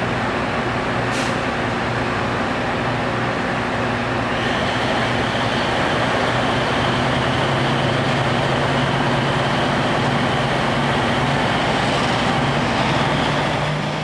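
KiHa 47 diesel railcar's engine running steadily at the platform, with a high whine joining about four seconds in. Near the end the engine note rises as the railcar starts to pull away.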